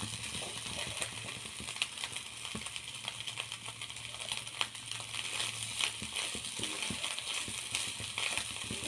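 Capsicum and egg stir-fry sizzling faintly in the pan on a low flame, a soft hiss dotted with small crackles.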